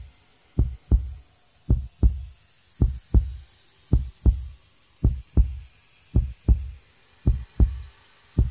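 Heartbeat sound on the soundtrack: deep, steady lub-dub double thumps, a pair a little more than a second apart, eight beats in all.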